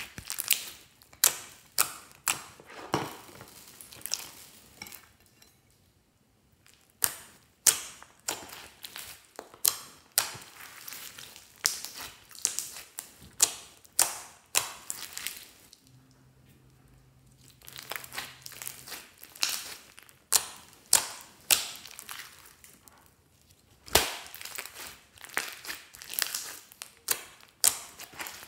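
Glossy slime mixed with small foam beads being squeezed and poked by hand: a run of sharp crackly pops, about one or two a second, falling quiet twice for a couple of seconds.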